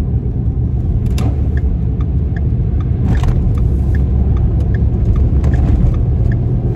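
Steady low rumble of a car in motion, heard from inside the cabin, with a regular light ticking about two and a half times a second and a few brief knocks.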